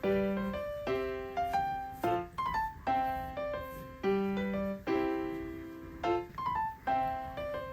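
Background piano music: a light melody of short notes that strike and fade away, in phrases that repeat every couple of seconds.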